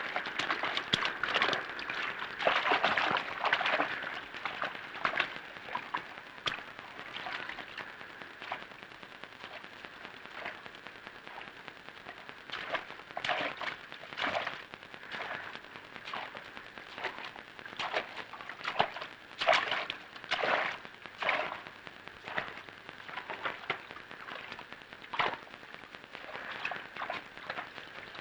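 Water splashing in irregular bursts over a steady hiss, as hands paddle a small boat.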